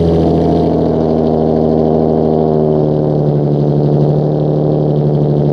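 Infiniti G35's V6 exhaust running at a steady engine speed, a loud, deep, even tone with no revs.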